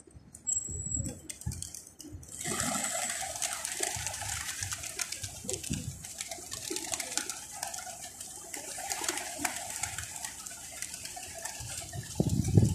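A large flock of feral rock pigeons cooing as they feed, over a dense patter of small clicks that sets in about two seconds in and grows louder near the end.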